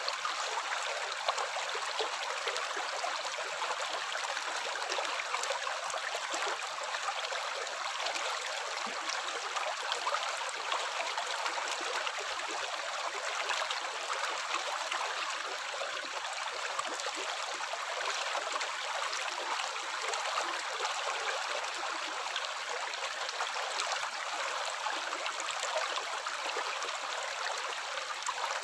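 Steady running water, a continuous rush with fine splashing and trickling, even throughout.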